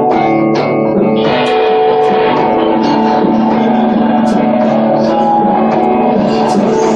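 Live post-rock band playing: electric guitar chords ringing out over drums, with repeated cymbal and drum hits.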